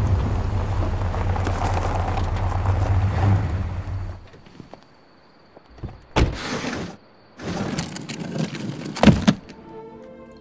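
Car engine rumbling as the vehicle drives, fading out about four seconds in. Then two short bursts of rustling noise and a heavy thud, the loudest moment, about nine seconds in; soft orchestral music comes in near the end.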